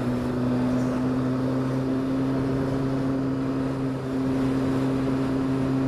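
Triumph Speed Four's inline-four engine running at steady revs while the motorcycle cruises, with a short dip in level about four seconds in.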